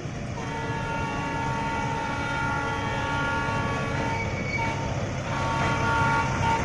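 Miniature joy train running along its track towards the listener: a low engine rumble with several steady high-pitched tones over it, which break off briefly a little past the middle. It grows slightly louder as it approaches.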